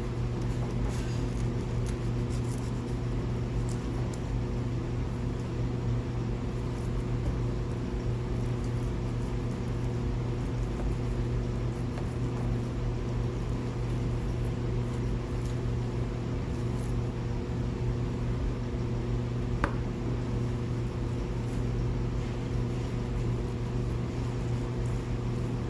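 Steady low machine hum with several constant tones, unchanging throughout, with a few faint ticks and one short click near the end.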